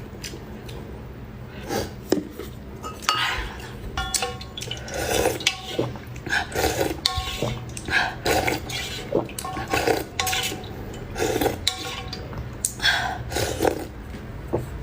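Utensils clinking and tapping against a ceramic bowl, some clinks briefly ringing, mixed with close-up eating noises from noodle soup, at irregular intervals about once a second.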